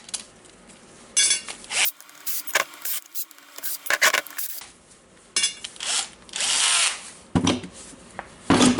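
A small power tool run in short bursts, with clicks and scrapes of metal parts, as the housing of a Makita GA9050 angle grinder is taken apart to get at the armature.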